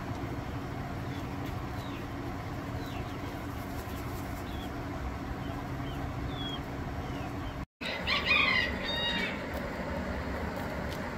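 Steady low rumbling background with a scatter of short, faint bird chirps. The sound drops out for an instant a little past halfway, then a louder bird call with several tones follows for about a second.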